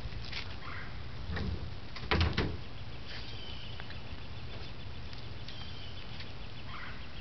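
A few short knocks and rattles from a small child's bicycle with training wheels being handled on a concrete driveway, the loudest two close together about two seconds in, over a steady low rumble. Faint bird chirps come in now and then.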